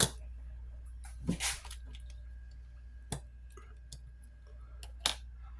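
A few small, separate clicks and taps from handling a smartphone's internal parts and tools during disassembly, one about a second in followed by a short rustle, over a steady low hum.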